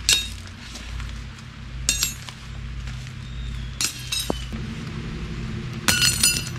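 Light metallic clinks, each with a short ring, about every two seconds, ending in a quick run of several: metal tarp-pitching gear knocking together as it is handled.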